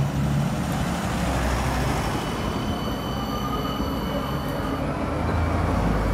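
Newcastle Light Rail CAF Urbos 100 tram passing close by, a steady rumble with a thin high whine over the middle of the pass.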